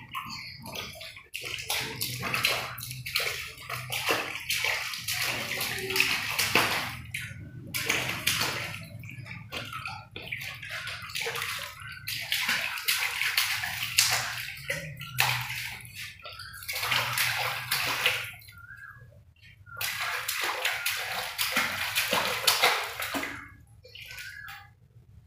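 A baby splashing the water in a plastic tub with its hands: spells of slapping and sloshing a few seconds long, broken by short pauses, dying down near the end.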